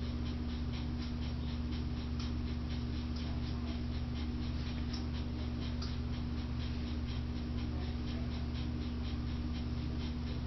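Steady low electrical hum made of several constant tones, with faint, rapid irregular ticking over it.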